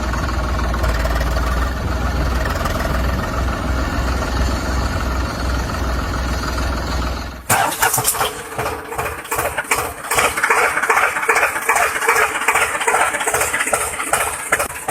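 A vehicle engine running steadily with a deep hum. About halfway through it switches abruptly to a higher, rapidly pulsing engine sound with no deep hum.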